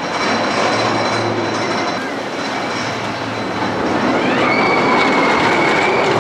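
A rail vehicle rumbling along its track. About four seconds in, a high squeal rises and then holds steady.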